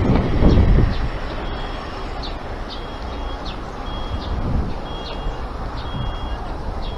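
Street traffic, with one vehicle passing loudly in the first second, and a pedestrian crossing's audible signal giving short, high electronic beeps about every two-thirds of a second.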